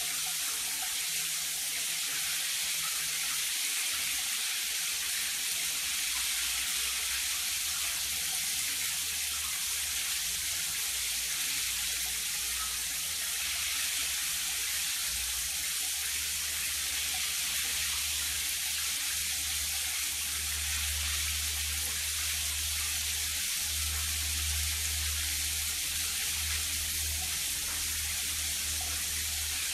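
Shower water running steadily in a tiled shower stall, an even hiss throughout.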